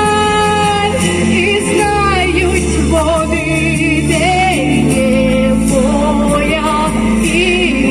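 A woman singing a Ukrainian song with vibrato over an instrumental backing track with a steady bass line.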